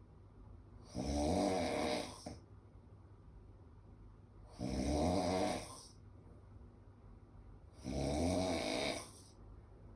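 A sleeping man snoring: three long snores, each lasting over a second, spaced about three seconds apart with quiet breathing pauses between.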